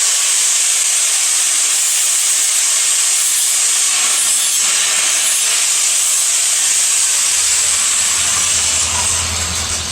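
Hitachi (Metabo HPT) angle grinder grinding a steel exhaust pipe end clean: a loud, steady, high hiss that starts abruptly and tapers off near the end.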